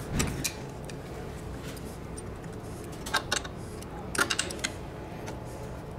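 Hands hooking a suspension seat's bellows onto its frame and plastic trim: scattered light clicks and rattles, with a small cluster about three seconds in and another about four seconds in.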